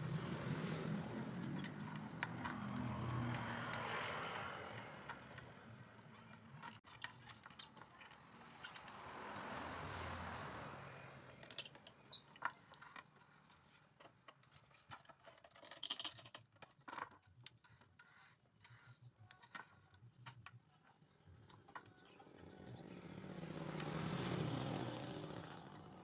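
Motor vehicles passing, a low rumbling noise that swells and fades a few times. In between come many light clicks and taps of bamboo as the carved bamboo bird cage is set on its round base and handled.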